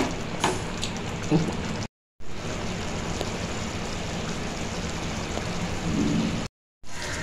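Thick rajma curry simmering in a pan, a steady bubbling, spattering hiss; a wooden spatula knocks against the pan a few times in the first second or so. The sound drops out twice briefly.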